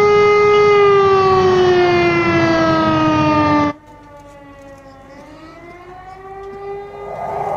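Air-raid warning siren wailing: a loud held tone that slides slowly down in pitch. About four seconds in it drops sharply in loudness, and the quieter siren dips and rises again.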